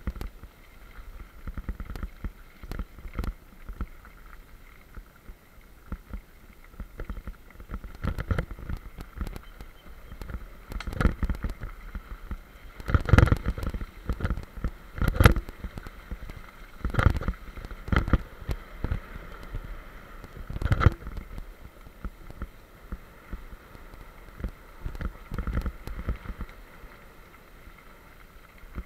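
Mountain bike rolling fast down a gravel trail: tyres crunching and the bike rattling over bumps, with frequent sharp knocks. The loudest clatter comes about halfway through, as the bike crosses a mesh-decked footbridge.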